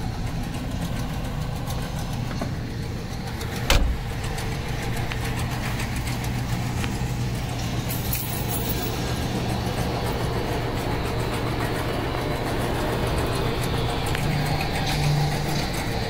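Ford Mustang 5.0's V8 engine idling steadily, with brief small rises in pitch near the end. A single sharp knock about four seconds in.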